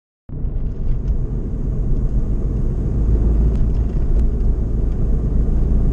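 Honda N-VAN kei van driving, heard from inside the cabin: a steady low rumble of engine and road noise that cuts in suddenly a moment after the start.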